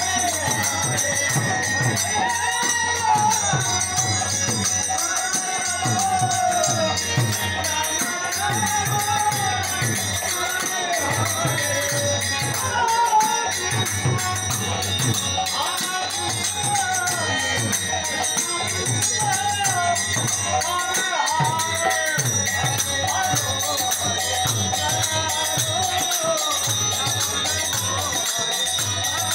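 Hindu kirtan music: men singing a devotional chant over the steady beat of a khol drum and the continuous jingle of small hand cymbals.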